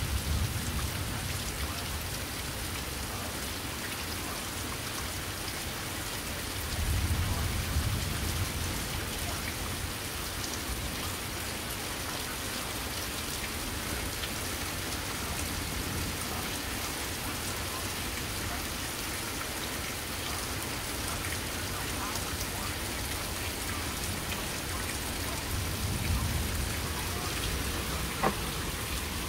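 Steady rain falling, an even hiss, with low rumbles swelling about seven seconds in and again near the end.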